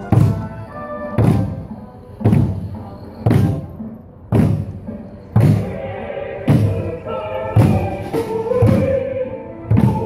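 Korean barrel drums (buk) beaten in a slow, steady march beat, about one stroke a second, with a march tune underneath.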